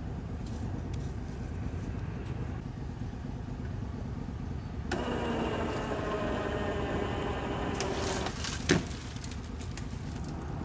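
Electric winch motor running under load for about three seconds, its whine sinking slightly in pitch as it strains on a dead pull to drag a mired Max amphibious ATV out of a ditch, then stopping. A sharp clack follows half a second later, the loudest sound. Before the winch starts there is only a low rumble.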